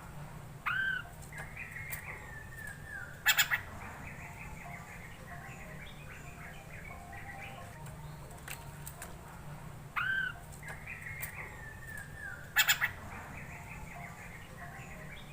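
Poksay mandarin (black-throated laughingthrush) song played as a repeating lure: a rising-then-falling whistled note, a run of falling notes, a short loud rattling burst, then quick chattering, the whole phrase coming round again about every nine seconds. A faint low hum runs underneath.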